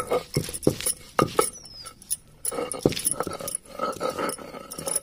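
Stone roller on a stone grinding slab (sil-batta) crushing raw garlic cloves and ginger: a quick run of sharp knocks as the cloves are pounded, then a continuous gritty grinding rasp from about two and a half seconds in as they are worked into paste.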